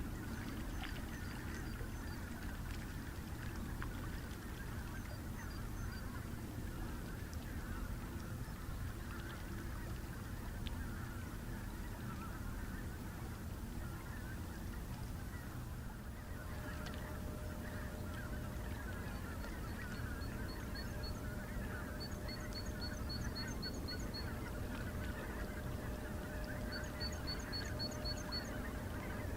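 A large flock of geese honking and chattering continuously at a distance, over a steady low rumble. From about halfway through, a steady hum joins in, along with quick series of high, thin chirps from a small bird.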